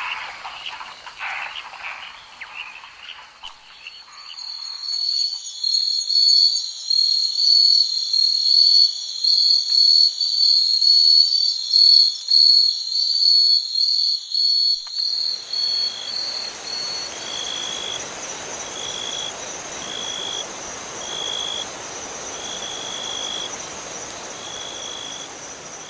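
Recorded nature ambience of frogs and insects. A pulsing frog chorus at first, then from about four seconds a loud, high insect trill in rapid pulses. Past the halfway point the pulsing gives way to a steady hiss under a high insect drone and short chirps about once a second.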